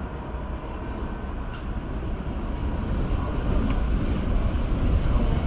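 Airbus A321's twin IAE V2500 turbofan engines at high power as the airliner rolls along the runway, a deep rumble that grows steadily louder.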